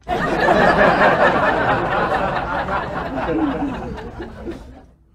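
Canned audience laughter from many people, cutting in suddenly and fading out near the end.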